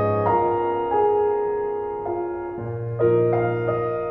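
Slow, gentle piano music: notes and chords struck about once a second, each left to ring and fade.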